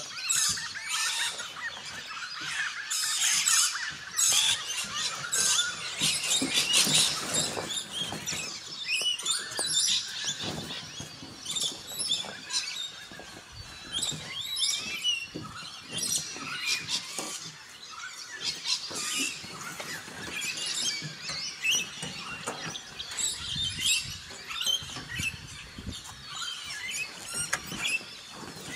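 Birds chirping and calling throughout, mixed with rustling and knocks as the canvas tent of a fold-over camper trailer is pulled open and handled.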